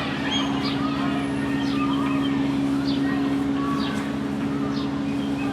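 A machine running with a steady, even hum, with short high chirps about once a second over it.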